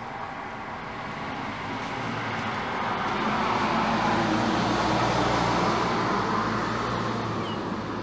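A motor vehicle passing by: a low engine hum and road noise swell to a peak about halfway through, then fade away.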